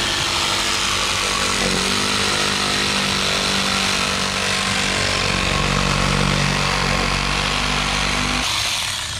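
Cordless reciprocating saw cutting through white PVC pipe, running steadily through the cut and stopping near the end as the pipe is severed.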